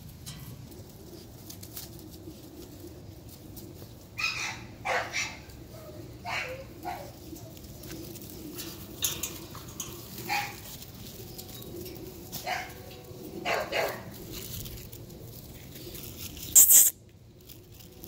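American Bully puppies barking, about ten short barks scattered through the middle of the stretch, with a brief loud noise near the end.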